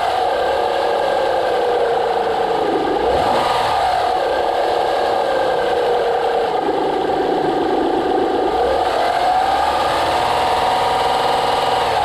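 2009 Honda Pilot 3.5-litre V6 running with its timing belt exposed, just after its hydraulic timing belt tensioner was replaced. It gives a steady whir whose pitch sags and climbs back several times.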